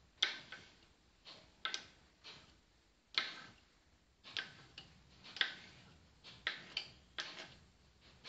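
Knife blade striking a granite countertop as it cuts through a log of dough, giving a dozen or so sharp clicks at irregular spacing.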